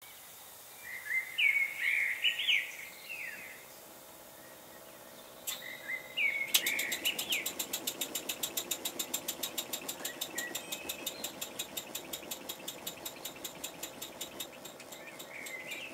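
Birds chirping for the first few seconds. Then, about six and a half seconds in, a small wig-wag oscillating model engine starts running steadily, its exhaust puffing about four times a second.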